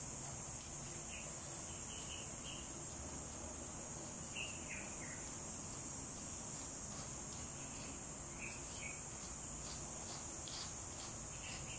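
Steady, high-pitched chirring of an insect chorus, unchanging throughout, with a few faint short chirps and ticks over it.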